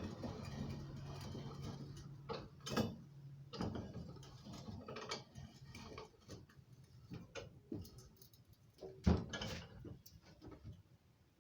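Scattered metallic clicks and knocks from a homemade vise's parts being handled and worked, with a low steady hum for the first few seconds.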